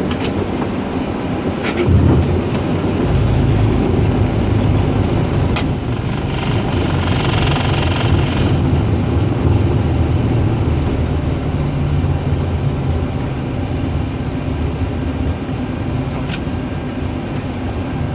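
Airliner touching down and rolling out, heard in the cockpit. A jolt about two seconds in is followed by a heavy low rumble of the landing gear on the runway, under steady engine noise. A rushing hiss swells from about six seconds and eases off before nine.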